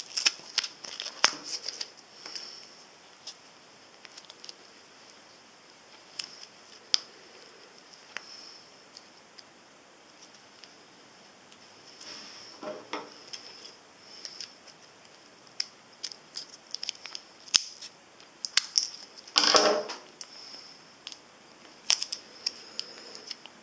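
Fingers picking and peeling tough plastic blister packaging off a Duracell coin-cell battery: scattered sharp clicks and crinkles of plastic and paper, with two longer crackling spells, one about halfway and one about four-fifths of the way through.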